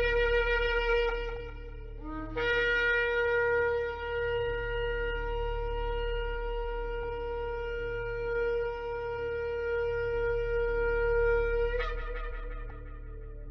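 A shofar being blown. A blast ends about two seconds in, then a long, steady held blast lasts about nine seconds and breaks sharply upward at its end before fading away.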